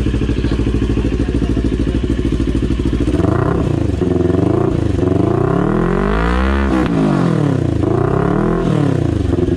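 CFMoto NK400's parallel-twin engine idling steadily through an aftermarket muffler. About three seconds in it is blipped several times, rising and falling in pitch, with one longer rev around the middle.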